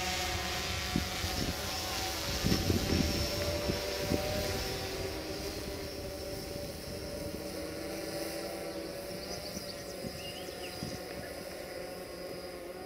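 Quadcopter drone's propellers whining steadily, several even tones held throughout, with a few low thumps about two to four seconds in.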